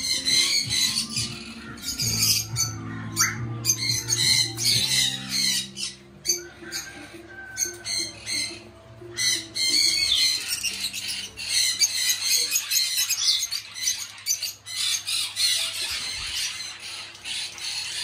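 A roomful of caged parrots, lovebirds among them, chattering and squawking in constant high-pitched calls. Background music runs underneath, its low notes strongest in the first few seconds.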